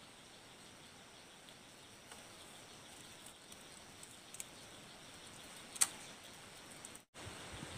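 Faint knife work shaving a wooden stick: a few small ticks as the blade cuts, the sharpest about six seconds in, over a steady high insect drone. The sound drops out for an instant near the end.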